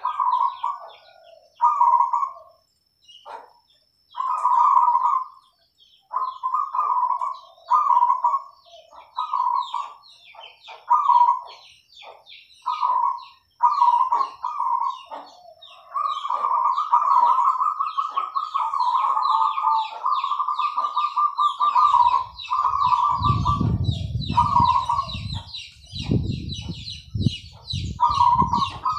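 Zebra doves (perkutut) cooing in short repeated phrases every second or two, with one long rolling, trilled coo past the middle. Small birds chirp high in the background, and a low rumble comes in near the end.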